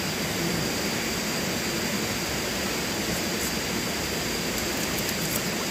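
Steady, even rushing noise, with a faint high thin tone held above it.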